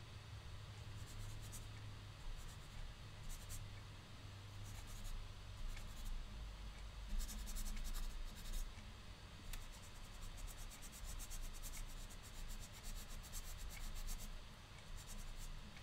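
Felt whiteboard eraser rubbing over a whiteboard, wiping off marker lines in repeated short strokes.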